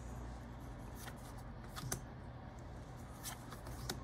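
Pokémon trading cards being flipped through by hand: a few faint slides and flicks of card on card, the loudest a little under two seconds in, over a low steady hum.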